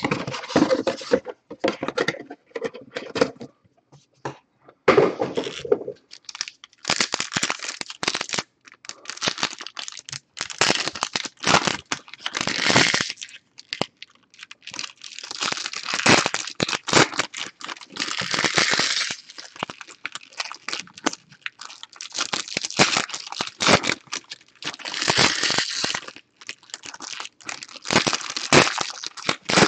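Foil wrappers of trading-card packs crinkling and tearing as the packs are opened by hand, in repeated bursts, along with cards being handled.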